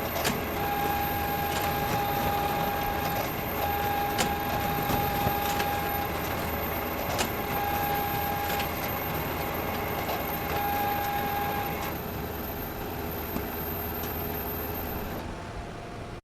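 Photocopier running: a steady mechanical whir with a whine that comes and goes and a sharp click every few seconds. It gets quieter about twelve seconds in.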